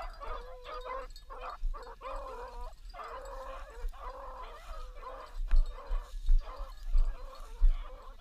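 Beagles baying and yelping on a rabbit's trail, a run of short, broken, pitched cries. Low thumps on the microphone join in over the second half.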